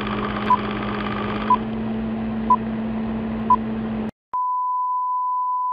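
Film-leader countdown sound effect: a steady hum and hiss with a short high beep once a second, four times. About four seconds in the noise cuts off, and after a click one long steady beep sounds.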